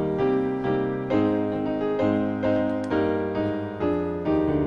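Piano playing hymn chords, the chords changing about every half second, as the introduction to a hymn.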